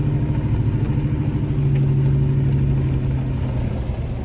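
A vehicle engine running steadily at a low pitch, its note easing down a little about halfway through.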